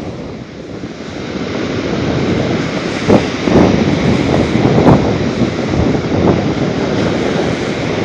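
Rough sea surf: storm waves rushing and breaking on the shore, with wind buffeting the microphone. The surf swells from about a second in and surges a few times.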